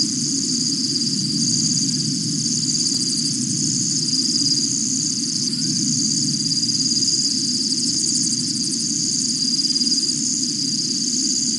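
Steady high-pitched chorus of night insects trilling continuously, over a steady low hum.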